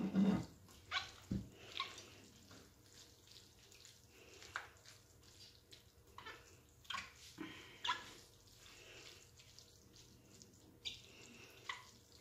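Silicone spatula stirring and folding cooked rice into a minced-meat and vegetable sauce in a large serving bowl. Irregular wet squelching and scraping, with an occasional sharper knock of the spatula against the bowl.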